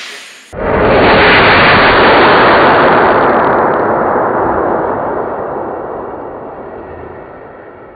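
Petrol-vapour explosion in a plastic drum, heard slowed down: after the fading tail of the real-time bang, a long roar swells about half a second in and dies away slowly over several seconds.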